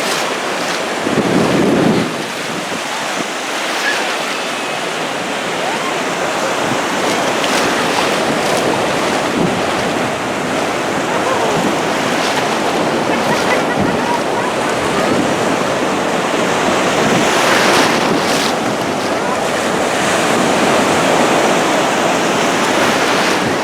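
Ocean surf washing steadily onto the beach, with wind buffeting the microphone; a louder low gust of wind rumble about a second in and brief surges of wash near the end.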